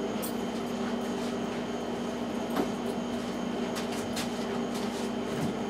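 Steady machine hum with a few faint knocks and clicks.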